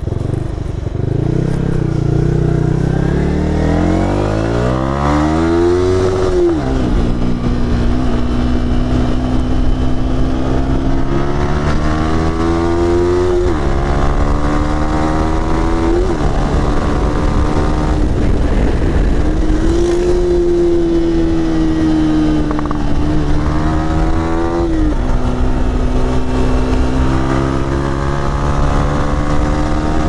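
Yamaha R15's single-cylinder engine pulling the bike along under throttle. The engine note climbs steadily, then falls sharply at each gear change, several times, and climbs again.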